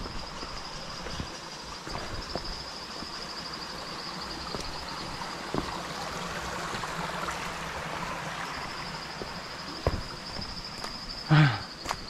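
An insect's steady high-pitched trill, dropping out for a couple of seconds midway, over scattered footsteps on a forest trail. Near the end comes one short, loud sound that falls in pitch.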